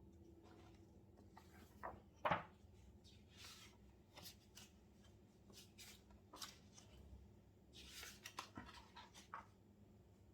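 Faint, irregular desk-work sounds: scattered taps and clicks with a few short scratchy rustles, as of typing and handling notes at a study desk.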